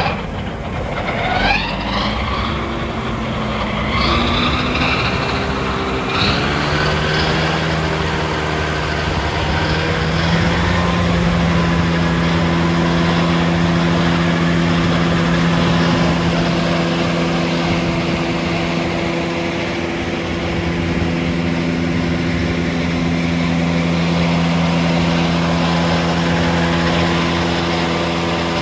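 Tractor engine and the PTO drive of a hitched John Deere 1365 disc mower conditioner, rising in pitch over the first six seconds as they speed up, then running at a steady speed.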